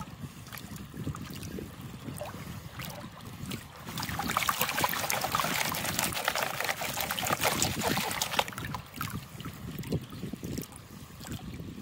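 Water sloshing and splashing in a plastic gold pan as it is dipped and swirled in the river, washing out black sand and gravel, with many small clicks of grit and pebbles against the pan. The splashing grows louder for several seconds in the middle, then settles back to a gentler slosh.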